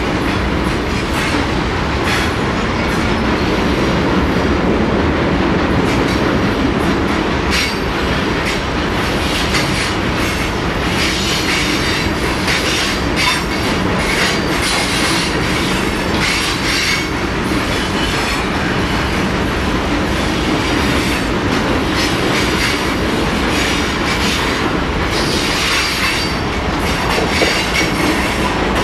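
High-sided freight cars of a long freight train rolling steadily past: a continuous rumble of wheels on rail, with irregular clicks and clanks from the wheels over the track that grow busier partway through.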